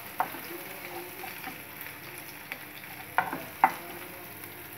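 Chopped onions sizzling in hot oil in a frying pan as a spatula stirs them, with a few sharp knocks of the spatula against the pan, the loudest two about three seconds in.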